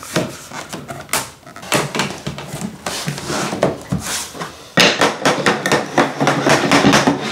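Vinyl plank flooring being knocked into its click-lock joint: scattered knocks, then a rapid run of knocks from about five seconds in.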